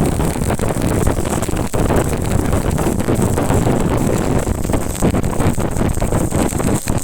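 Stick (arc) welding on reinforcing steel: the electrode's arc crackles and sizzles steadily, with a couple of brief dropouts.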